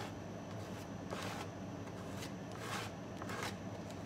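A flexible card scraping thick chalk-paint paste across a stencil in several short strokes, over a steady low hum.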